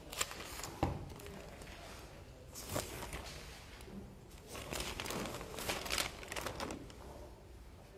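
Sheets of paper rustling and crinkling as they are picked up and leafed through, in several short irregular bursts with a light knock about a second in.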